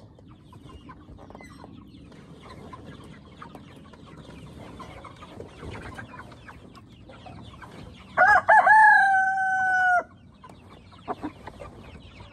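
A rooster crows once about eight seconds in: a few quick rising notes, then a long held note lasting about two seconds that cuts off sharply. It is loud against low, steady clucking and rustling from chickens in the coop.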